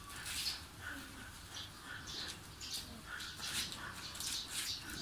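Small birds chirping in the background: many short, high chirps in quick irregular succession, a few every second.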